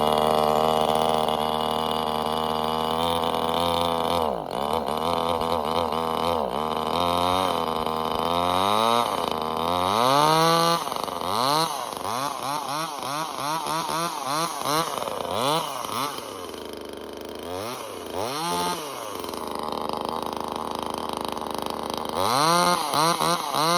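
Neotec NCS2500 top-handle two-stroke chainsaw, just started, running at a steady fast idle. From about eight seconds in, it is revved up and down over and over in quick throttle blips, with short spells back at idle between.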